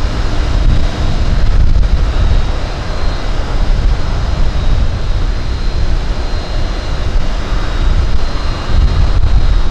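Wind buffeting the microphone: a loud, irregular low rumble that rises and falls.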